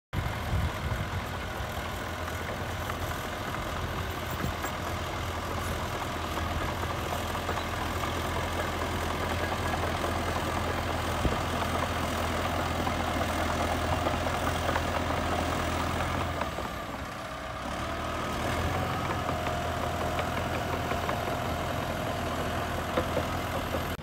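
Caterpillar D3 crawler bulldozer's diesel engine running steadily as it pushes dirt. About two-thirds of the way through the engine sound dips briefly, then picks up again with a steadier, higher note.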